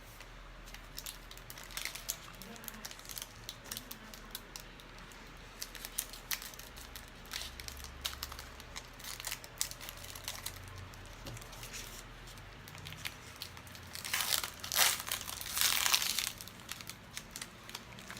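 A trading-card pack's wrapper crinkling and being torn open, in scattered crackles with the loudest burst of crinkling near the end.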